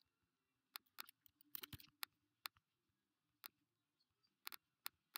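Faint, scattered clicks of a computer mouse and keyboard keys, about ten short clicks at irregular intervals with near silence between them.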